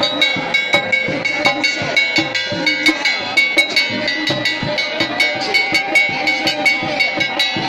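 Drums played in a fast, steady beat, with struck metal ringing over them.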